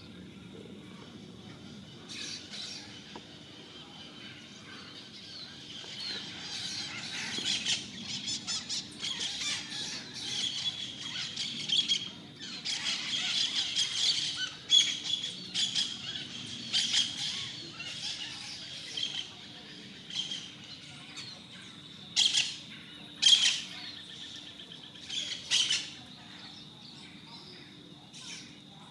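A flock of wild parrots squawking and chattering, the calls crowding together in the middle, then a few single loud squawks near the end. A steady high tone runs underneath.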